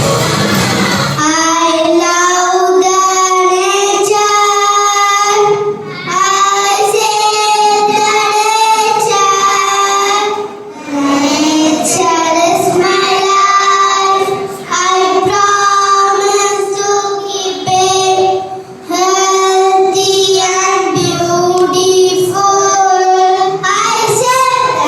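A child singing a melody in long held notes, phrase after phrase, with short breaks between phrases.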